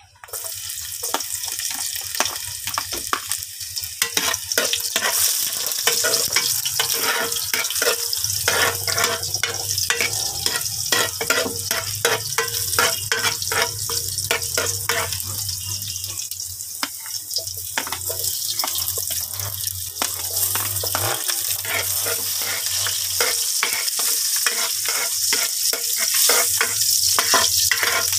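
Garlic and onions sizzling in hot oil in a large metal pot as they are sautéed, with a metal ladle scraping and knocking against the pot in rapid stirring strokes.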